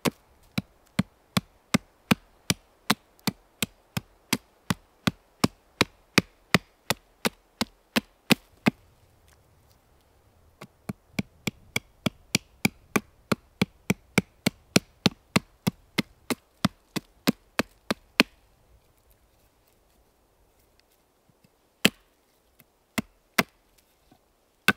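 Wood being chopped with quick, even blows, nearly three a second, in two long runs with a short pause between them, then a few scattered strikes near the end.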